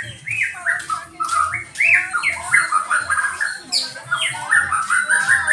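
A songbird singing a rapid, continuous string of short chirping notes.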